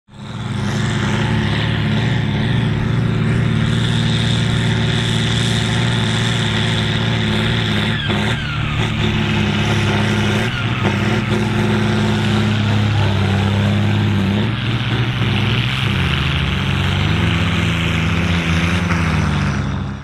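John Deere 4240's six-cylinder turbo diesel running steadily under heavy load while pulling a four-furrow plough through the soil. The sound fades in at the start, the engine note shifts for a few seconds near the end, and it fades out.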